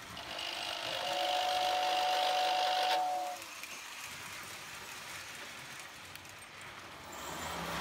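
Lionel O gauge toy steam train: its whistle sounds a steady two-note blast that cuts off suddenly about three seconds in. Then comes the running noise of the train rolling along the tinplate three-rail track.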